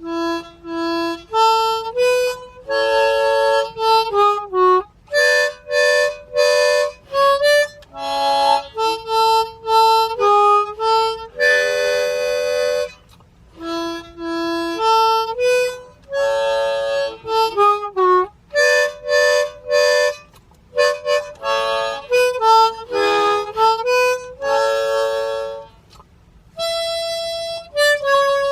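Solo harmonica playing a simple cowboy folk tune, mostly single notes with chords mixed in. It begins right after a brief pause, in short phrases separated by small gaps.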